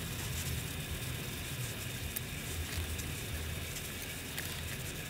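Faint ticks and rustles of duck feathers being plucked by hand, over a steady low background hum.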